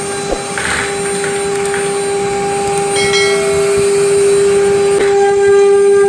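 CNC router spindle running at speed with a steady, even whine as it engraves a wooden panel, the level creeping up slightly toward the end.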